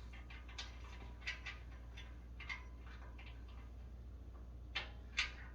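Light, scattered clicks and taps of the stove's leg and bolt being handled and fitted by hand, with a louder pair near the end.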